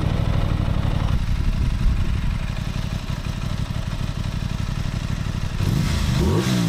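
Sport motorcycle engine idling steadily, then blipped twice near the end, its pitch rising and falling quickly each time.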